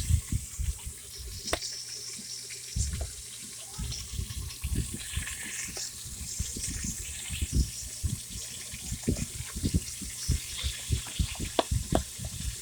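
Chicken pieces sizzling and frying in hot oil, with a steady hiss and repeated low knocks and bumps of handling.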